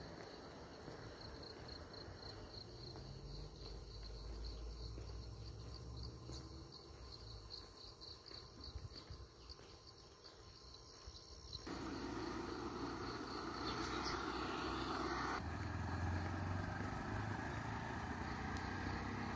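Rural outdoor ambience with an insect chirping high and evenly over a low rumble. About twelve seconds in, a louder steady rushing noise takes over.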